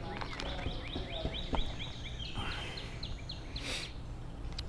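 A songbird singing a fast series of short, repeated chirping notes, about four a second, over a steady low outdoor rumble. A brief hiss comes about three and a half seconds in.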